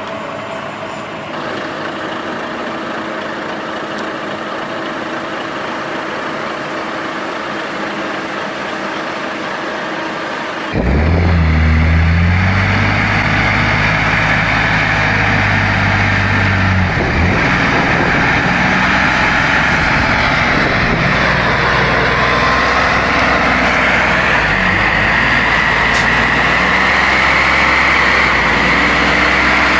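Heavy logging truck's diesel engine running steadily. About a third of the way in the sound cuts to a louder, deeper engine note, which later shifts in pitch as the engine works.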